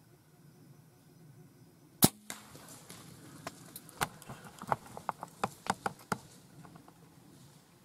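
A bow shot at a whitetail doe: one sharp, loud crack of the bow firing and the arrow striking, followed by an irregular run of snapping, crunching steps for about four seconds as the deer bolt through dry leaves.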